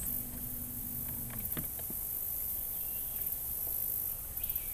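Insects droning steadily in a high-pitched, pulsing chorus, with a low steady hum through the first second or so and a few faint clicks just after it.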